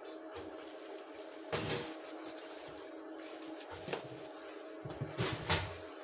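Items being handled during an unboxing: a few brief knocks and rustles, about a second and a half in, near four seconds, and a cluster near the end, over a steady hum.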